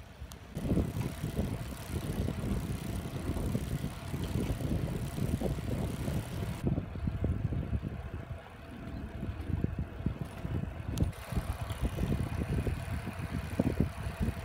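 Wind buffeting a microphone carried on a moving folding bicycle, an irregular gusting rumble over the hum of tyres on an asphalt path.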